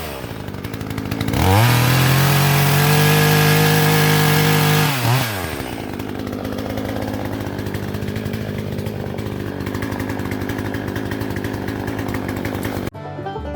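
Hyundai HYC6200X 62cc two-stroke petrol chainsaw revved up to full throttle for about four seconds, then dropped back to a steady idle. Near the end it cuts to banjo music.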